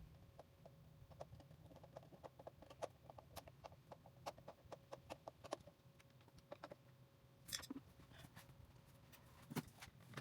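Faint, irregular clicking and light tapping of hand tools and small metal parts being handled. A brief scrape comes about seven and a half seconds in and two sharper knocks near the end, over a faint steady hum.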